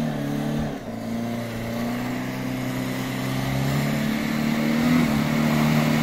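Off-road 4x4's engine labouring under load as it pushes through deep mud. The revs drop about a second in, then slowly climb again, and a rising hiss builds in the second half.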